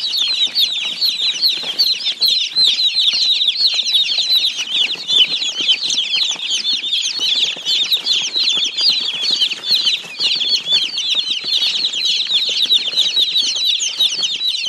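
A crowd of young domestic chicken chicks peeping all at once: many high, short cheeps overlapping in a continuous chorus.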